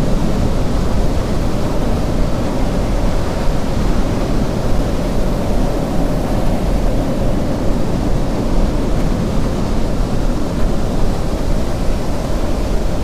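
Strong storm wind blowing over the microphone: a loud, steady rumble with no let-up.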